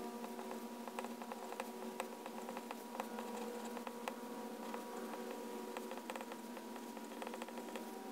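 Pilot Penmanship extra-fine fountain pen nib writing on Rhodia dot-pad paper: a soft scratching with many quick little ticks as the letters are formed. A faint steady hum runs underneath.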